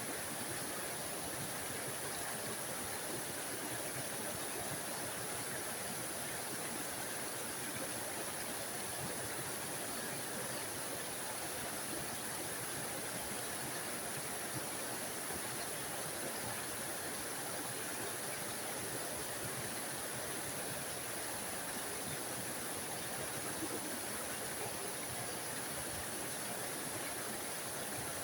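A small forest waterfall splashing steadily, an even rushing hiss with no changes.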